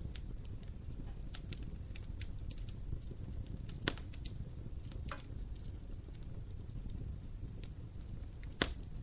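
Wood fire crackling in a fireplace: a steady low rumble of burning with many small sharp crackles, and two louder pops, one about four seconds in and one near the end.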